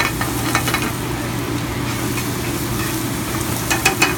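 Stir-fried ramen noodles with chicken and vegetables sizzling in a pan on a gas burner, with metal tongs clicking and scraping against the pan at the start and again near the end. A steady low hum sits underneath.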